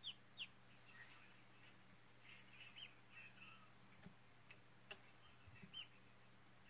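Khaki Campbell ducklings peeping: short, high calls, two in quick succession at the start and a few more scattered later, with a few faint ticks in between.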